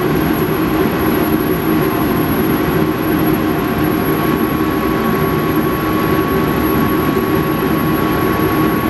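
Steady drone of running shop machinery, with a thin steady whine that comes in about four seconds in.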